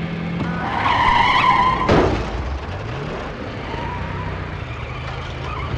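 A car skidding: tyres squeal for about a second, cut off by a sharp bang, then an engine revs up.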